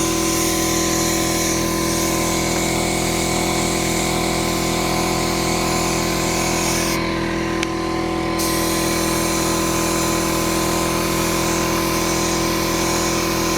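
Air compressor running steadily while a pneumatic paint spray gun hisses; the spray hiss stops for a moment about halfway through, then resumes.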